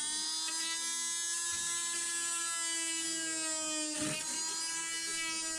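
Small handheld electric power tool running steadily at high speed with a high whine as it cuts a slot into a cabinet countertop. The pitch dips briefly about four seconds in, as the tool takes more load.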